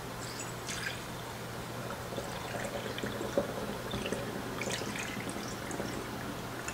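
Liquid poured from a glass mixing bowl through a small metal funnel into a glass spray bottle: a faint trickle with small drips and ticks.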